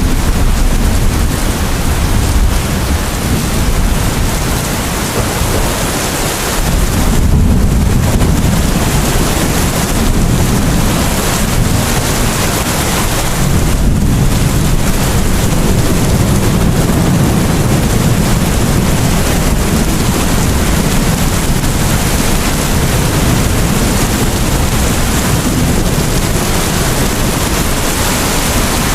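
Steady heavy rain, with a deep low rumble underneath that swells a few seconds in and again near the middle.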